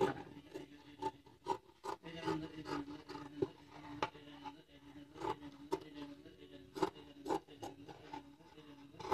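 Tailor's scissors snipping through dress fabric, a series of short crisp snips at roughly two a second, uneven in spacing.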